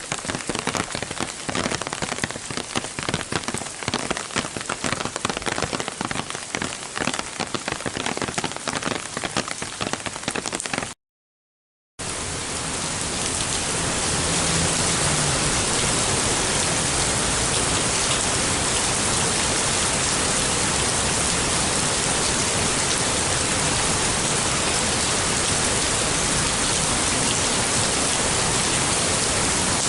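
Summer rain heard from under an umbrella, a dense run of separate drops striking the canopy. After about eleven seconds it cuts to a second of silence, then heavy summer rain comes in as a dense, even hiss that swells over a couple of seconds and holds steady.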